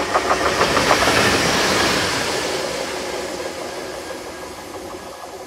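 Class 66 diesel-electric locomotive, with its two-stroke V12 diesel, running light past the platform. Its wheels click over rail joints in the first second, and the engine and wheel noise peak about a second or two in, then fade steadily as it moves away.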